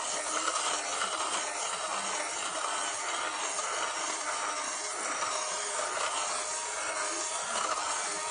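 Vacuum cleaner running steadily, a dense even whir.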